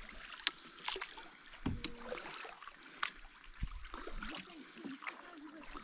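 Canoe paddles stroking through calm water: a soft swish and drip of water off the blades, with a short sharp tick about every second and a half as each stroke goes in.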